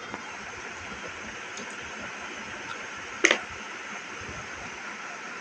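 Steady hiss, like a running fan, with one sharp knock about three seconds in.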